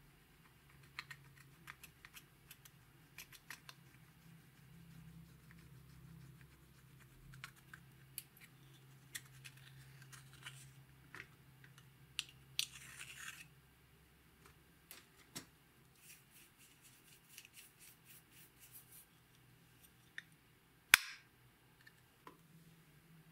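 A small tool scraping pressed makeup powder out of a compact's metal pan, with light scratching and many small ticks, a longer scrape about halfway through, and one sharp click near the end.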